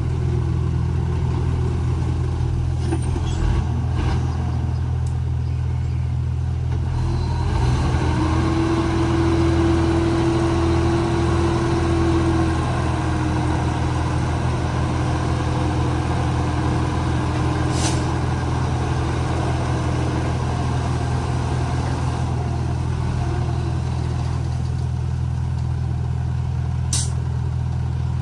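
Komatsu D31P bulldozer's diesel engine running steadily at work. A higher steady whine joins about eight seconds in and fades out about twelve seconds later, and two short sharp ticks come near the end.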